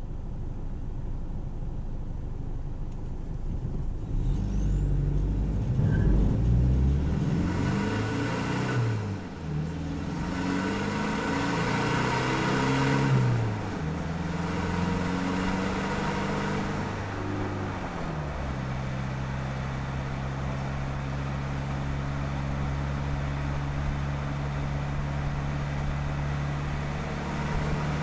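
Isuzu KB300's 3.0-litre four-cylinder turbo-diesel engine and exhaust, heard from beneath the truck. It runs low for the first few seconds, then pulls away about four seconds in, its pitch climbing and dropping three times as it shifts up through the gears. It then settles into a steady cruise for the last ten seconds.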